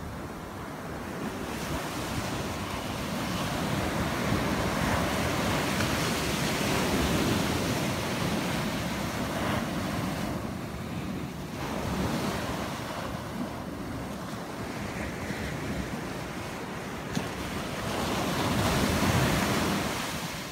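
Ocean surf: small waves breaking and washing up a sandy beach. The wash swells and ebbs in long surges, loudest a few seconds in and again near the end.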